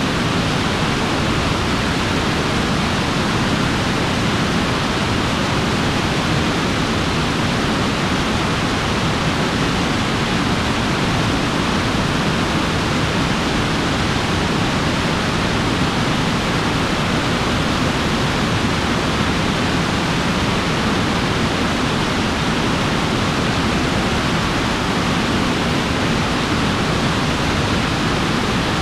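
BE-7 rocket engine thrust chamber assembly, burning liquid hydrogen and liquid oxygen, firing steadily in a static hotfire test: a loud, even, unchanging rushing noise.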